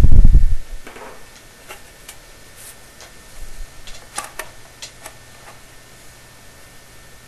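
A loud low thump, then a scattered run of light clicks and taps from 3-inch sheet-metal flue pipe sections being pushed together and handled.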